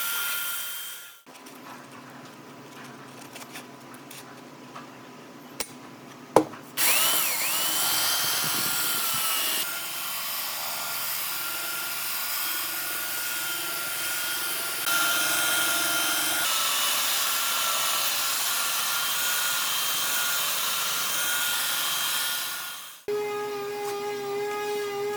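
Handheld electric power tool working wood, its motor whining steadily. After a sharp knock about six seconds in, the tool spins up and then runs steadily, and near the end a lower-pitched tool takes over.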